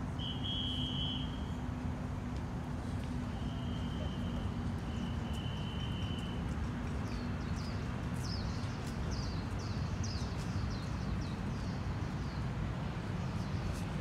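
Birds calling over a steady low rumble: a held, even high note near the start and a longer one a few seconds in, then from about halfway a quick run of short downward chirps, roughly two a second.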